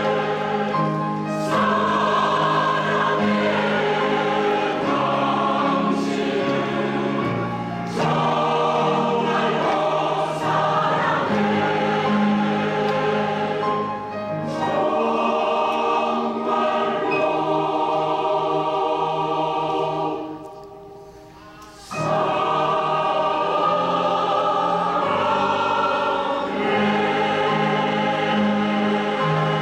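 Women's choir singing in sustained multi-part harmony. About twenty seconds in, the sound falls away to a brief hush for about a second and a half, then the voices come back in.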